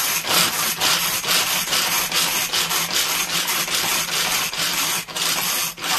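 Manual pull-cord food chopper worked in quick repeated pulls, about two to three a second, each a rasping zip as its blades spin through half a carrot and parsley.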